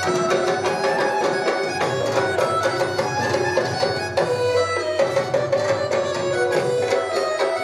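Traditional folk dance music: a melody over a steady, fast drum beat.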